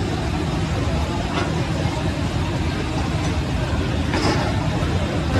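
Steady loud rumbling noise with faint voices underneath.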